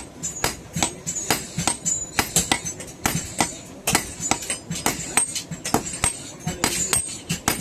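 Hammer blows on hot iron over an anvil, about three or four a second in an uneven rhythm, each with a high metallic ring.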